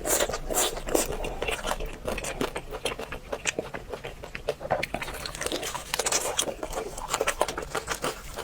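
Close-up crunching and chewing of crispy fried food, with many quick, irregular crunches.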